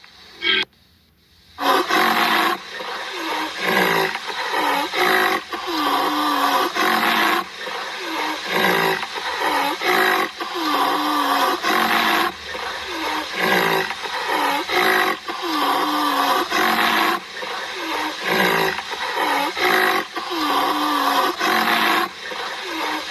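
A large animal giving a long, regular series of roaring calls, about one every second and a half, each bending down and back up in pitch.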